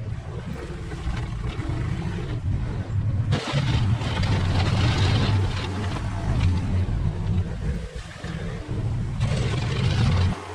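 Engine of an earth-moving machine pushing dirt, running steadily with a deep rumble and some rises in revs. A rushing hiss swells in about a third of the way through and again near the end.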